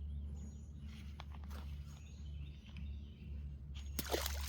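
Outdoor ambience by a pond: a steady low rumble with a few faint bird chirps, and a brief rustling burst near the end.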